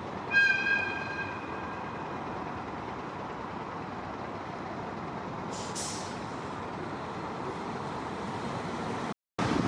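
Heavy vehicle running steadily. About a third of a second in comes a brief high ringing squeal that fades over a couple of seconds, and about six seconds in a short hiss of air, like an air brake.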